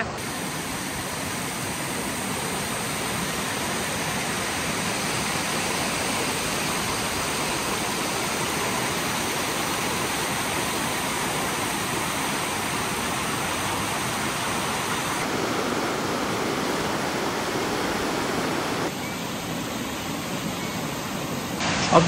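A tall waterfall pouring down a rock face, a steady rush of falling and splashing water. The sound gets slightly quieter in the last few seconds.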